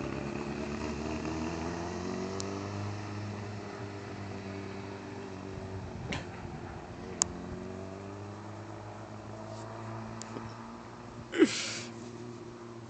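Motorcycle engine running as it rides off down the street, its pitch rising and falling with the throttle and slowly fading with distance. A sharp click about seven seconds in and a brief loud burst of noise near the end.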